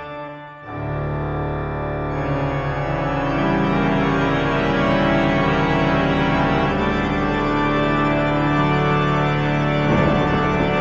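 Ominous background music of long held chords, dipping briefly about half a second in and then swelling fuller.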